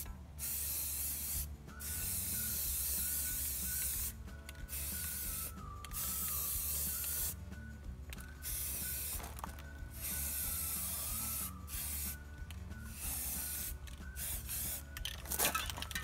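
Aerosol spray-paint can hissing in repeated bursts of one to three seconds, with short breaks between them as the nozzle is pressed and released.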